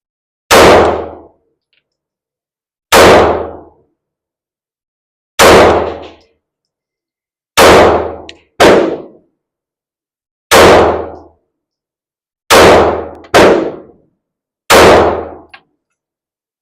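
Beretta PX4 Storm pistol firing a slow string of nine loud shots, mostly about two seconds apart, with two quicker follow-up shots about a second after the one before, each ringing briefly.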